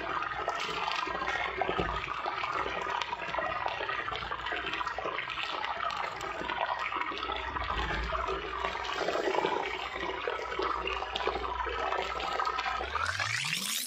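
Chicken cooking in a pan with liquid, a steady sizzle full of small crackles. Near the end a rising swoosh sweeps up.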